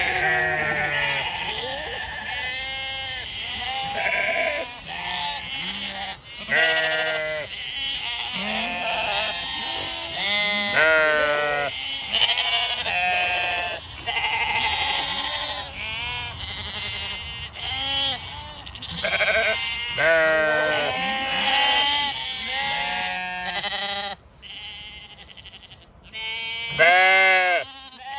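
A flock of Zwartbles sheep bleating, many overlapping calls one after another, with one loud close bleat near the end.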